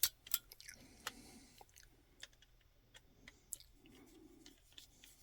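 Faint, irregular small metal clicks and light scraping as a freshly cut 6-32 bolt is turned back out of the threaded bolt-cutter hole of a wire stripper, its threads being re-formed on the way out.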